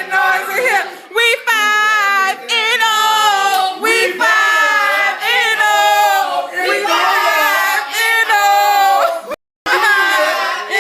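A high-pitched voice singing or vocalising without clear words, wavering and gliding in pitch in short phrases. The sound cuts out completely for a moment about nine and a half seconds in.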